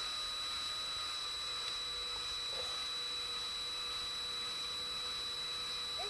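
Cordless drill running at a steady speed, driving a wood-auger honey pump inside a flow hive frame: an even motor whine and hum with no change in speed.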